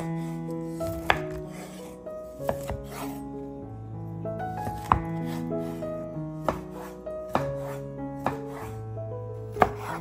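Chef's knife slicing a peeled lemon on a wooden cutting board, the blade knocking against the board about seven times, roughly once a second, over soft background music.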